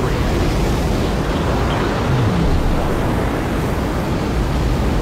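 Jet-engine sound effect: a steady, loud rumbling rush of noise, the engine running up before launch.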